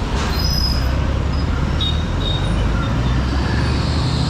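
Honda SP125's single-cylinder 125 cc engine running steadily under way, amid dense city traffic noise, with a few brief high tones from the surrounding traffic.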